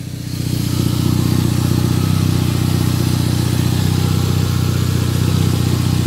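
Toyota 3S-GTE turbocharged 2.0-litre four-cylinder engine idling steadily, running on its first start after about two years parked. It grows louder over the first second, then holds an even note.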